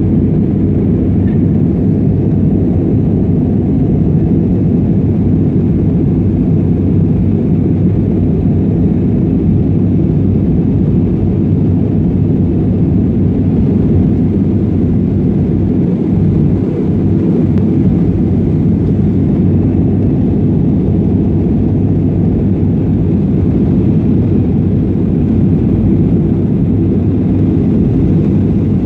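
Passenger airliner climbing after takeoff: a steady, loud, low rumble of engines and airflow that holds without rising or fading.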